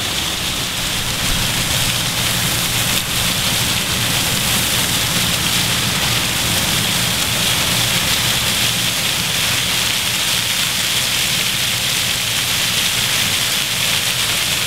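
Fountain jets spraying and splashing into their basin: a steady, unbroken hiss of falling water.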